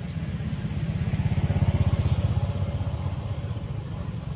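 An engine running with a fast, low, even pulsing, growing louder between one and two seconds in and then easing off.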